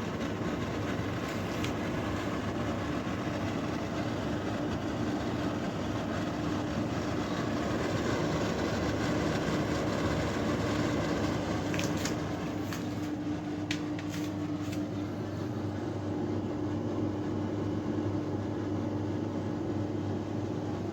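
Iris Ohyama IPA-2822G portable air conditioner running: a steady whoosh of the fans with a constant low hum from the compressor. A few faint ticks come in around the middle.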